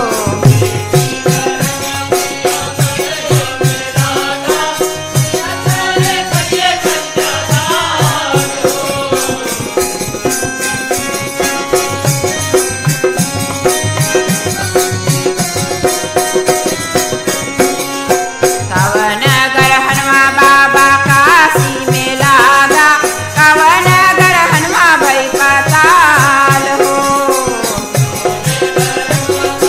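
Wedding folk song (lokgeet): a voice singing over a held drone and a fast, steady beat of hand percussion. The voice drops out for several seconds in the middle, leaving the drone and beat, then comes back.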